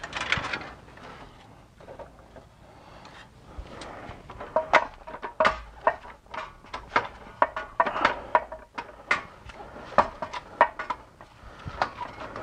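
Irregular metallic clinks and knocks, a few ringing briefly, as a ZF S5D 320Z five-speed manual transmission on a transmission jack is shaken and pushed up onto the engine to slot its input shaft into the clutch. The knocks grow frequent from about four seconds in.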